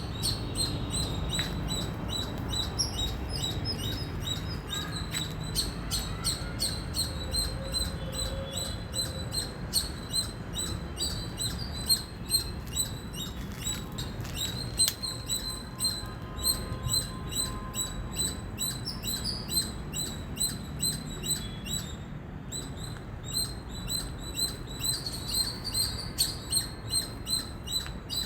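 Squirrel chirping: a long run of short, high-pitched chirps repeated several times a second, over steady low background noise.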